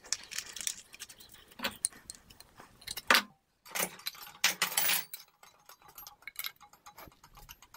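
Brass pipe fittings and a pressure gauge handled and fitted together by hand on a metal bench: scattered small metallic clicks and clinks, with a few short scraping noises about three to five seconds in.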